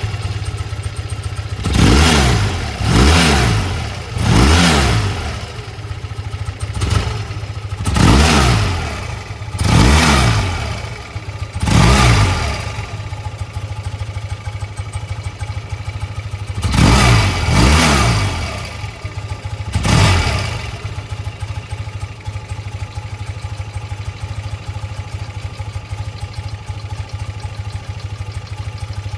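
BMW R100RS's air-cooled flat-twin engine at idle, blipped nine times in three groups of short throttle revs that rise and fall back, then idling steadily. It breathes through a collector box with its internals removed and the stock silencer fitted.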